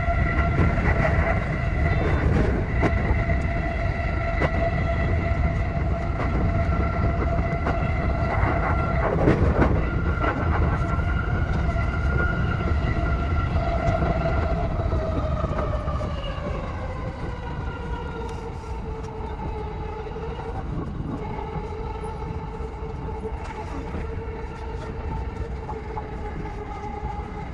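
E233 series electric train running, heard from inside the driver's cab: a steady low rumble of wheels on rail with a steady pitched motor whine. About halfway through, the whine glides down in pitch over a few seconds and the rumble grows a little quieter.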